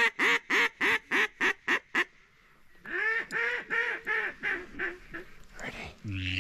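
Mallard hen quacking in two runs of about nine quacks each, roughly four a second, each run starting loud and fading away: the hen's descending decrescendo (hail) call.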